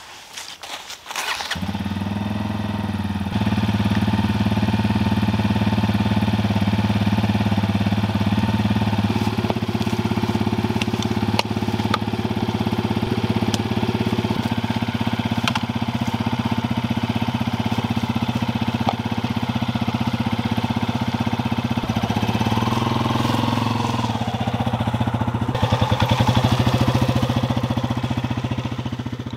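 Motorcycle engine starting about a second and a half in, then idling steadily as it warms up. Near the end it rises as the bike pulls away, and the sound fades out.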